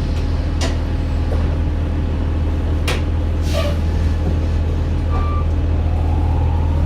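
Cabin sound of a 2009 Orion VII Next Generation diesel-electric hybrid bus (Cummins ISB engine, BAE Systems HybriDrive) on the move: a steady low drone with a few short knocks and rattles. Near the end a rising whine climbs in pitch as the bus pulls away.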